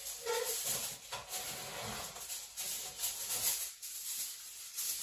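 Aluminium foil being handled and crinkled: irregular crackly rustling.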